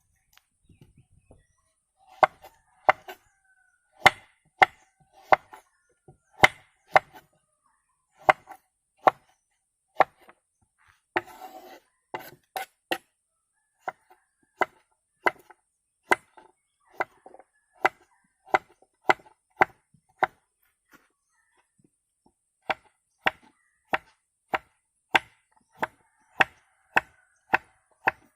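Repeated chopping with a blade, sharp strikes on wood that ring slightly. They come irregularly at first and then at about two a second, with a brief rustle near the middle.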